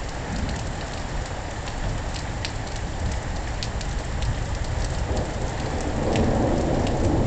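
Steady heavy rain with individual drops ticking close by. A low rumble of thunder swells from about five seconds in and grows louder.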